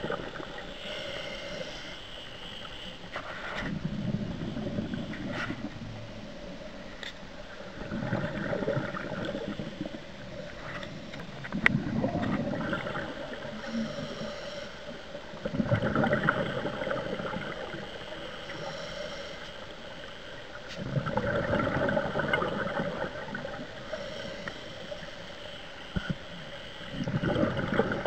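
Scuba diver breathing through a regulator underwater: a rush of exhaled bubbles about every four to five seconds, seven times in all, with a fainter hiss from each inhale in between.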